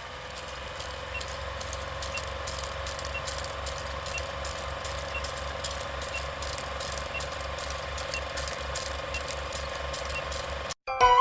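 A steady mechanical whir with a rapid, even clicking, several clicks a second, and a faint tick about once a second; it cuts off suddenly near the end.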